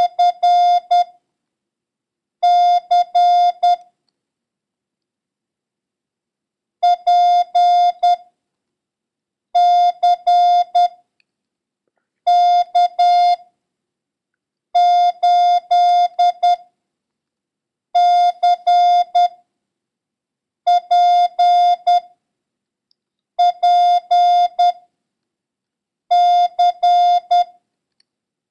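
Morse code practice tone keying a run of single International Morse Code characters. There are about ten characters, each a quick group of long and short beeps on one steady pitch, sent about one every two to three seconds with silence between.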